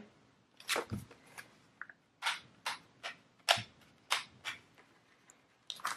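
Paper pages of a ring-bound planner being flipped one after another by hand: a quick run of a dozen or so crisp flicks, about two or three a second.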